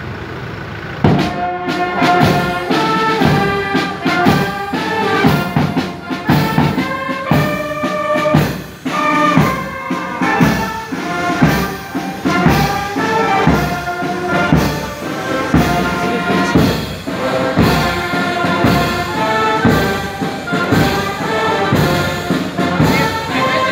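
Brass band with trumpets playing a tune over a steady beat, striking up about a second in.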